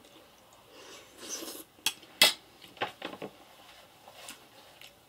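A metal fork clinking against a china plate: several short, sharp clicks, the loudest a little over two seconds in.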